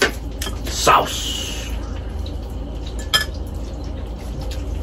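Metal cutlery clinking and scraping against a plate and a bowl of sauce at the table: a few separate clinks, the loudest about a second in and another about three seconds in.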